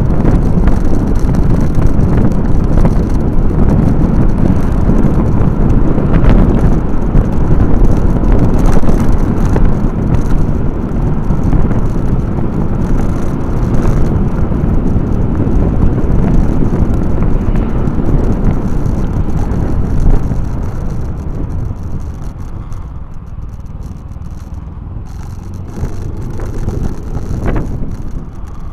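Wind buffeting the microphone of a camera on a moving vehicle, a loud low rumble mixed with road noise. It eases off about 20 seconds in.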